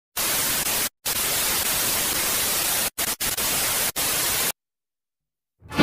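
Electronic static hiss, an even full-range noise at a steady level that cuts out abruptly for brief moments four times and stops about four and a half seconds in.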